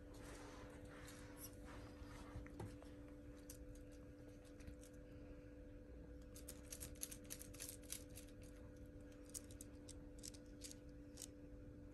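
Near silence: quiet room tone with a faint steady hum, and from about a third of the way in a scatter of faint, light, high ticks.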